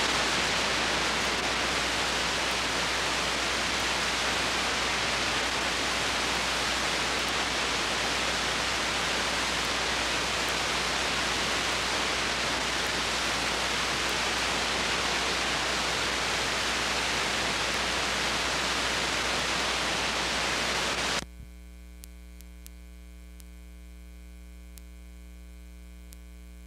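Loud, even hiss of videotape static (picture snow) that cuts off suddenly about 21 seconds in, leaving a steady electrical mains hum.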